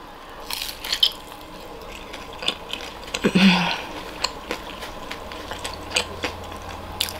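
Close-up chewing of a bite of battered fried tempe: a run of small, crisp crunches and mouth clicks, with a short hum of the voice a little over three seconds in.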